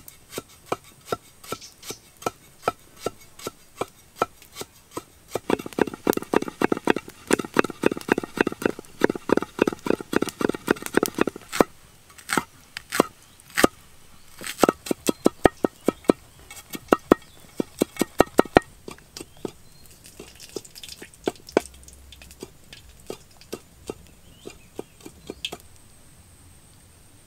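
Cleaver chopping on a wooden chopping block: steady knocks about two a second, then a faster, heavier run of about four a second for several seconds, then slower, irregular strikes that thin out to a few faint taps near the end.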